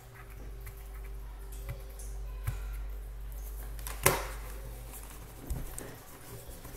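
Handling noises at a desk: a few light clicks and one sharp, loud knock about four seconds in, over a low steady hum.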